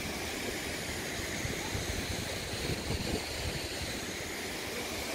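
Steady rushing of a small waterfall and the stream flowing over rocks below it.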